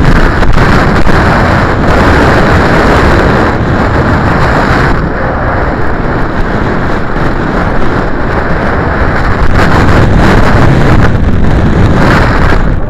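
Strong wind buffeting the microphone: a loud, steady rushing noise with no engine, since the model is an unpowered slope-soaring glider.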